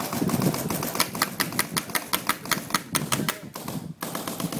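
Paintball markers firing in rapid strings of sharp pops, about eight a second, with a brief lull near the end.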